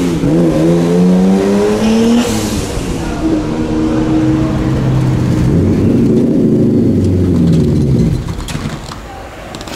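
Drift car's engine running hard, its pitch climbing and falling back several times with the throttle. About eight seconds in the engine sound drops away to a quieter background.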